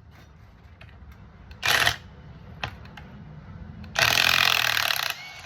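850 Nm impact wrench hammering to loosen a fastener. It fires in two bursts, a short one under half a second and then a longer one of over a second.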